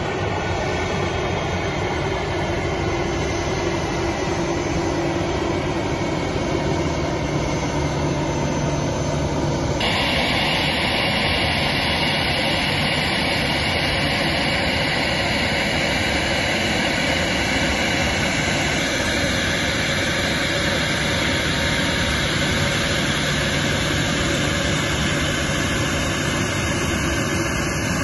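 Jet engines of a four-engined Airbus A340 running at low power as it taxis, a steady rush with a faint high whine. The sound changes character abruptly about ten seconds in.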